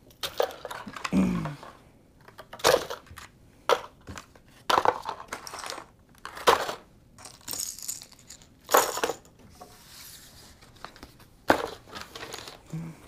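Plastic lure packages and a cardboard box being handled on a desk: crinkling and rustling plastic with light knocks as items are picked up and set down, in about ten separate bursts.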